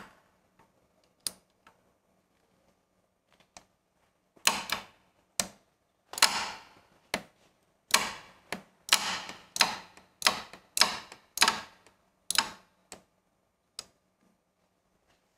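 Wera Joker combination ratchet spanner's fine-toothed ratchet clicking as it is swung back and forth on a nut. A few single clicks come first, then from about four seconds in a run of a dozen or so short ratcheting buzzes, one on each return stroke, which stop near the end.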